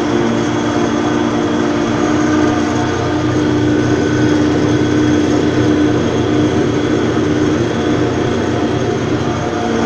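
Tractor engine running steadily under load while pulling a cultivator across a field, with a constant hum and a rumble that hold steady throughout.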